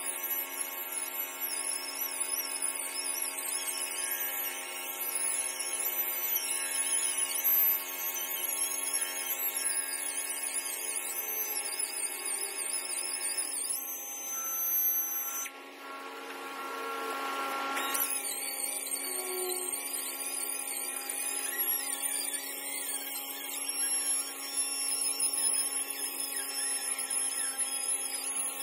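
Hand-held wet stone polisher running steadily while polishing a granite sink cutout edge, a whine whose high pitch wavers as the pad is pressed against the stone. A rushing hiss breaks in for a couple of seconds around the middle.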